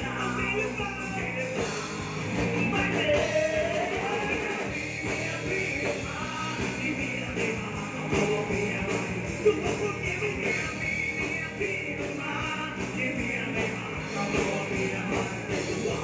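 Live rock band playing: electric guitar, bass and drums with a singer.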